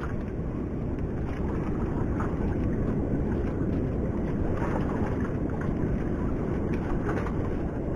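Steady wind rumble on the microphone over open sea, with a few faint handling knocks and no clear engine tone.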